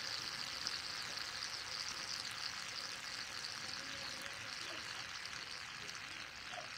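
Aerosol can of shaving cream spraying out foam in a long, steady hiss that weakens after about four seconds.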